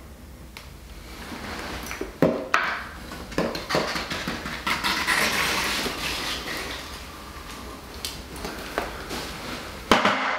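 A metal spreading tool scraping and smearing Laticrete Hydro Ban liquid waterproofing membrane over fabric tape at the wall-floor joint of a shower, with a few sharp taps of the tool.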